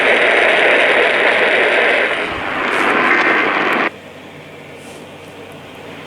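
Radio static: a loud, even hiss that cuts off suddenly about four seconds in, leaving a much fainter hiss that slowly grows again.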